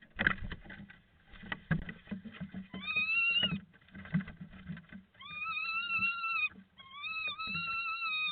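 Owls scuffling inside a wooden nest box: a quick run of knocks, thuds and scrapes in the first few seconds. From about three seconds in come three long, steady high notes, each held for about a second.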